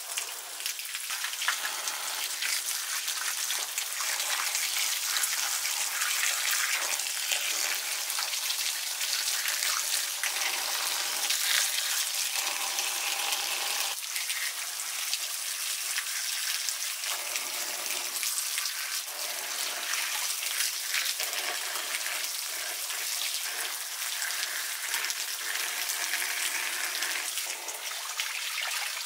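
Water gushing steadily from pipe spouts and splashing onto stone paving, and into and through a bamboo basket of mushrooms being rinsed under the stream.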